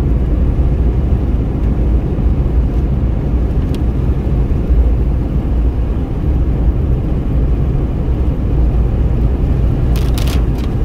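Steady low rumble heard inside a Renault Kwid's cabin while driving: tyre and engine noise on a wet road. A few sharp clicks come near the end.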